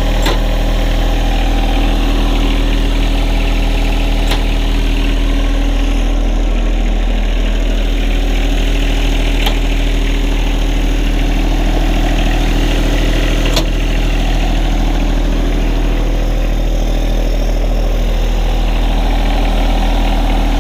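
John Deere 1025R's three-cylinder diesel engine idling steadily, with a few sharp clicks scattered over it, made while the mower deck's casters are being lowered.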